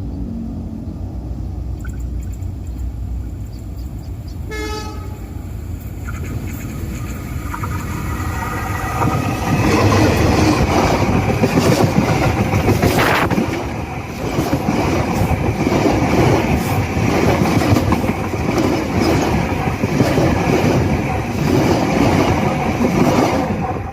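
Railway track humming as a train approaches, with a short train horn blast about five seconds in. From about ten seconds in the train passes, its wheels clattering rhythmically over the rail joints, and the sound drops off sharply near the end.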